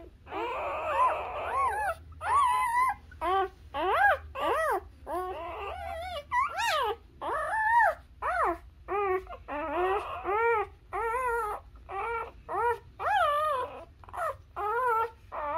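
Newborn Labrador puppies squeaking and whimpering while they nurse: a rapid string of short, high calls, each rising and falling in pitch, about two a second, with several overlapping in the first couple of seconds.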